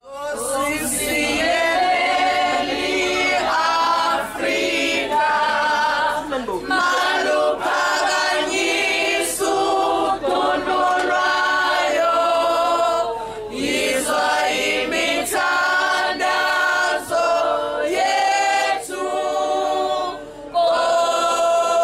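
A group of women singing together unaccompanied, in long phrases with short breaks between them.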